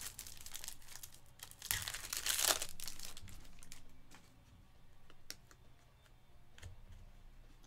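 A trading-card pack wrapper being torn open and crinkled, loudest in a burst about two seconds in, followed by fainter rustling and a few light clicks as the cards are handled.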